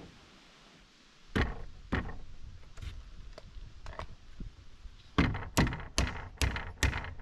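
Sharp knocks on pine framing lumber while a wall stud is plumbed and braced: a few scattered ones, then about six in quick even succession near the end, roughly two and a half a second.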